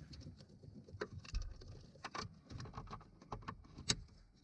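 Scattered light clicks and rustling of plastic connectors and wire harness being handled as an Autostop Eliminator plug-in module is connected, with a sharper click about four seconds in as a connector latches.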